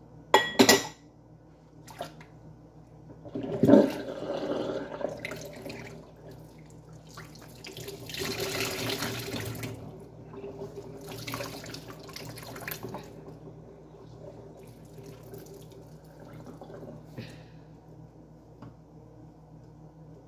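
Dish washing at a kitchen sink: a glass bowl clinks with a short ring about half a second in, a knock comes near four seconds, and water splashes in the sink in two spells, around eight and eleven seconds.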